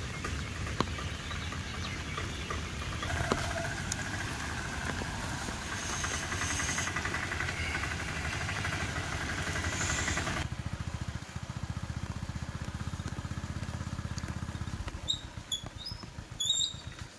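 Heavy rain hissing steadily over a low, evenly pulsing engine rumble, like a small motorbike engine running. About ten seconds in, the rain hiss drops away and the engine goes on, with a few short high chirps near the end.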